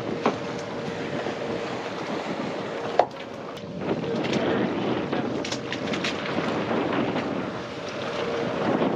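Wind buffeting the microphone over choppy sea around a boat, with a faint steady hum for the first few seconds and a sharp click about three seconds in.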